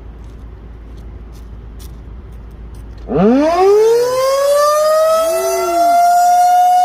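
Federal Signal 2001-SRNB electromechanical warning siren starting up about three seconds in, its pitch winding up quickly and levelling off into a loud, steady tone, over a low background rumble.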